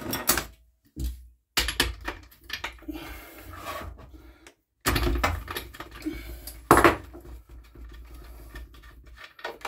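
Clicks, knocks and clatter of tools and small metal parts being handled while working on a petrol strimmer, over a low rumble of handling noise, with one louder knock about seven seconds in.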